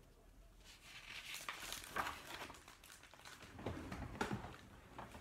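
Pages of a picture book being handled and turned: soft, intermittent paper rustling, strongest in the latter half.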